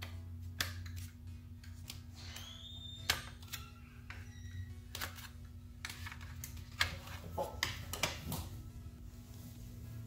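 Irregular small clicks and snaps of plastic and metal tweezers as the circuit board of a Chevy Silverado climate control unit is pried out of its plastic housing, over a steady low hum.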